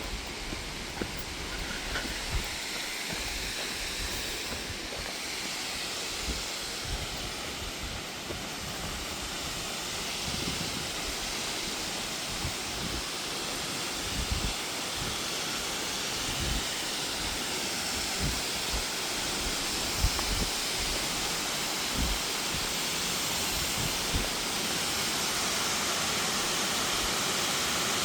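Steady rush of falling water from a waterfall, growing gradually louder, with occasional low thumps.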